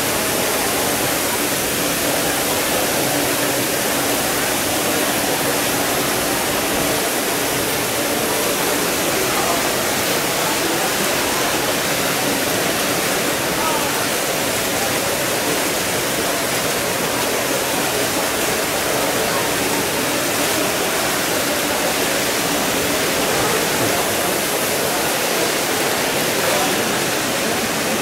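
Ornamental pool fountain jets spraying, a steady rush of water splashing back onto the pool's surface.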